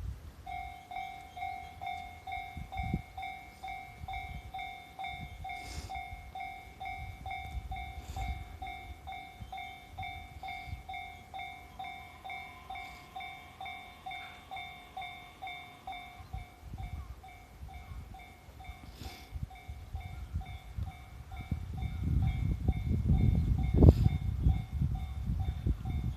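Japanese level-crossing warning bell ringing at about two strokes a second. In the last few seconds an E657-series limited express electric train comes up and passes the crossing, its rumble rising until it is the loudest sound.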